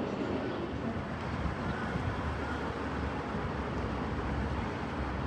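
Jet aircraft engines making a steady low rumble and roar that holds at an even level.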